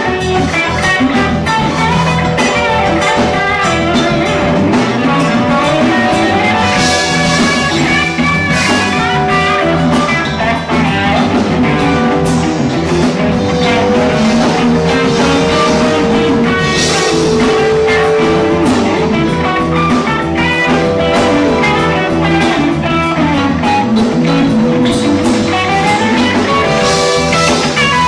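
Live rock band playing an instrumental jam with electric guitars, bass, keyboard and a drum kit, the guitar lines bending and winding over a steady beat.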